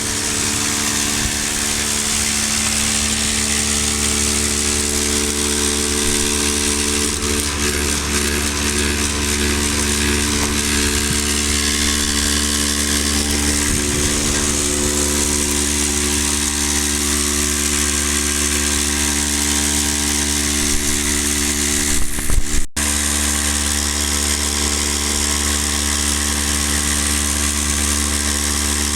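Electric vibrating drywasher running steadily: the motor hums with a hiss of dry dirt sliding over the shaking deck. About two-thirds of the way through there is a brief louder clatter, then the steady running carries on.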